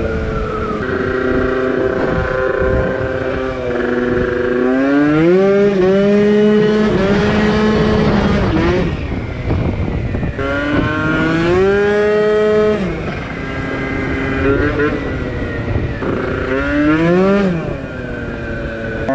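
Two-stroke Piaggio NRG MC2 scooter engine with a 70cc kit, under way: the revs sweep up and hold high, fall away when the throttle is closed a little after eight seconds and again a little after twelve seconds, then climb again several times.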